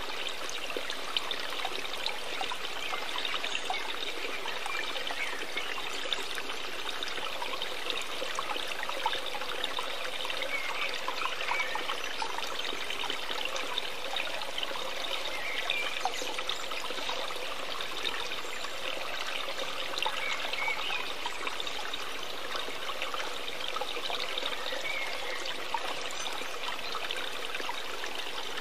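Steady trickling, flowing water.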